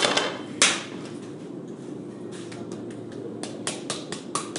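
Raw beef slices slapped and tapped on a plastic cutting board. One loud slap right at the start and another just over half a second in, then a quick, irregular run of lighter clicks and taps from a little past two seconds. A steady low hum runs underneath.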